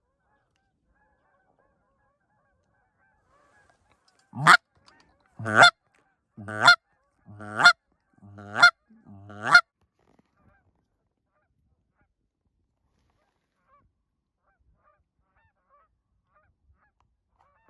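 Canada goose honking: six loud honks about a second apart, each breaking sharply upward in pitch.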